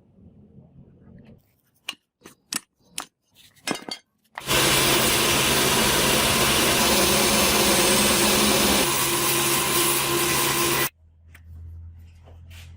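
A few sharp clinks and knocks, then an electric power tool runs loudly for about six seconds and cuts off suddenly. A lower steady hum is left near the end.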